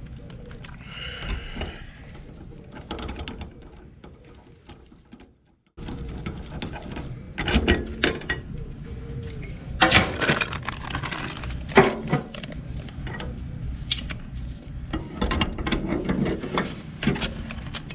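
Irregular metal clicks and knocks from a hand-turned threaded press tool working on a bronze raw water pump housing as a new shaft and bearings are pressed into place.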